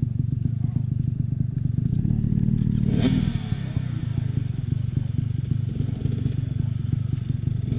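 Dirt bike engine labouring up a steep hill climb, running steadily under load and swelling briefly before a sharp knock about three seconds in, then running on.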